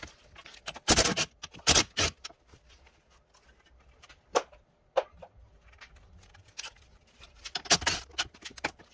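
Sharp metallic clinks and knocks of hand tools and a socket on the caliper bracket bolts as they are undone: a few strikes early on, two single ones midway, and a quick cluster near the end.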